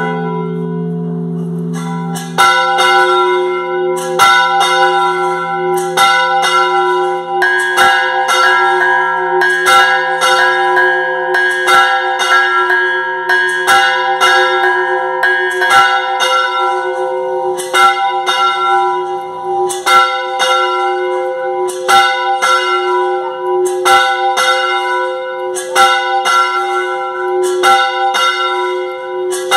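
Church bells rung in a festive repique: hanging bronze bells, a large one and a smaller higher one, struck by their clappers pulled on ropes in a quick, uneven rhythm of a few strokes a second, each stroke ringing on over the next. The strokes start about two seconds in, after a lingering ring.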